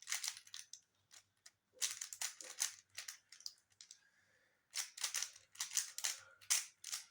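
3x3 Rubik's cube being turned by hand at speed: its plastic layers click and clack in quick flurries, with a short pause about halfway, as the last moves of a CFOP solve are done.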